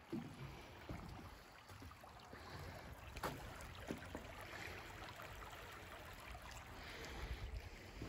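Faint rushing of a shallow stream rippling over rocks, with a few footsteps knocking on wooden bridge boards and low wind rumble on the microphone.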